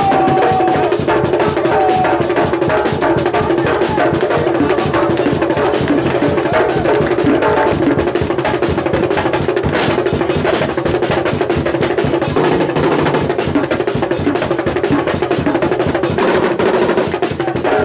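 Live aloukou dance music played loud, driven by dense, steady drumming and percussion with melodic lines over it.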